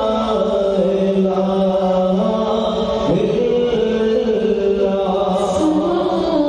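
Two male voices singing a Bengali Islamic gojol (naat) together into microphones, with long, drawn-out notes that slide from pitch to pitch.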